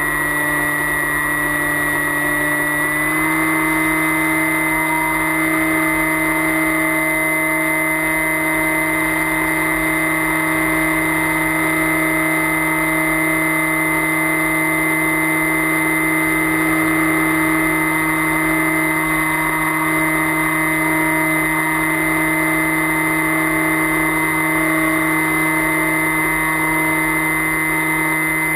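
The FPV flying wing's motor and propeller droning steadily, heard from the onboard camera. The pitch steps up slightly about three seconds in, then holds steady.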